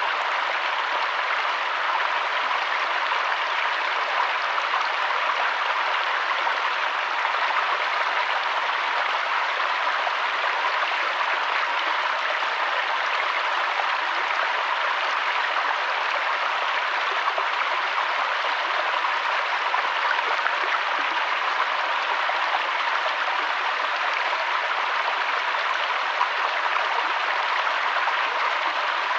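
River water flowing steadily: an even rushing sound.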